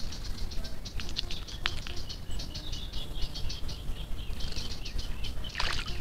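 Great kiskadee bathing in a shallow water basin: a splash and wing-flutter about five and a half seconds in, over a steady run of rapid, high-pitched chirps.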